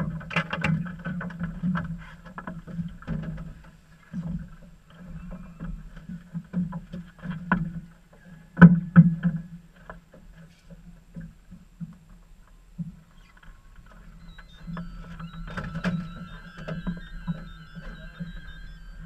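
Water slapping and knocking against the hull of a small fishing boat, an uneven low rumble broken by irregular bumps, with one sharp knock a little before the middle. A faint high tone comes in near the end.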